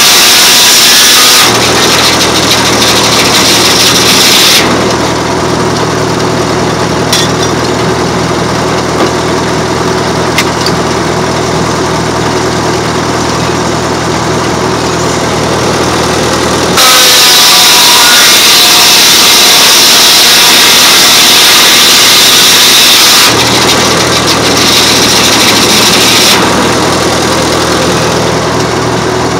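A circular sawmill's head saw and its power unit running steadily with an even hum. The blade cuts through wood with a loud, high hissing whine, once ending about a second and a half in and again for about six seconds from about 17 seconds in.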